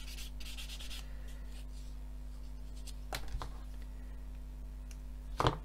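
Small hand tools working a hard plastic model part. A blade scrapes it in quick short strokes for about the first second, then there are a few light clicks, and a sharper click near the end.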